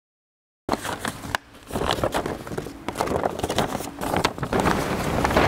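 Sheets of paper rustling and crinkling as they are shuffled and handled, an irregular run of crackles that starts suddenly just under a second in.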